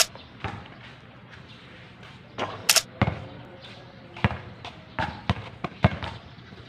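Basketball bouncing on an outdoor court: irregular sharp thuds with players' footsteps, coming quicker, about three a second, in the later part. A short sharp scrape is heard a little before the middle.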